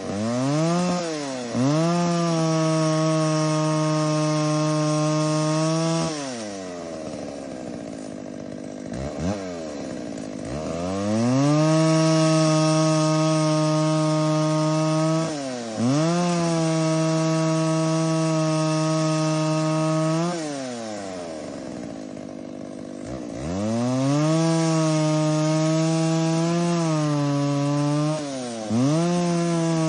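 Around-60cc two-stroke chainsaw revved to full throttle and held there in three long runs, cutting wood, with the pitch dropping back to idle between runs. During each run the revs dip briefly and recover.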